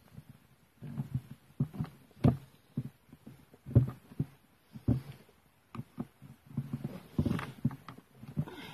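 Irregular knocks, clunks and clicks of hand tools and strimmer parts being handled during reassembly, with a rougher scraping rattle about seven seconds in.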